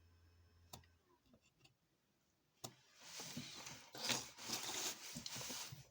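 Small tool clicks at a phone repair bench, then a scratchy, fluctuating hiss from about three seconds in that lasts nearly three seconds, during soldering of a new charging port.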